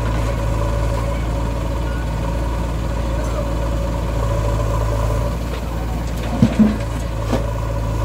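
Heavy diesel engine of farm or earthmoving machinery running at a steady speed, with two short, loud knocks about six and a half seconds in and a lighter click a moment later.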